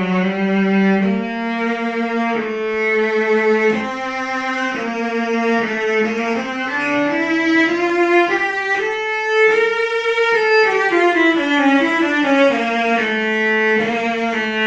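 Solo cello played with the bow, a melody of held notes that climbs step by step to its highest point about two thirds of the way through, then descends toward the end.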